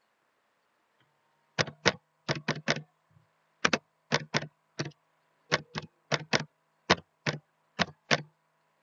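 Computer keyboard typing: about seventeen sharp key clicks in uneven runs, starting about a second and a half in.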